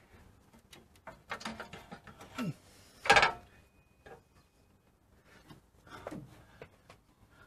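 A radiator being worked by hand down into its carrier in an engine bay: scattered knocks, clicks and short scrapes, with one loud knock about three seconds in and another cluster of knocks and scrapes near the end.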